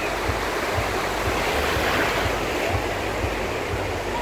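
Small Black Sea waves breaking and washing around a wader in shallow water, swelling a little midway, with wind rumbling on the microphone.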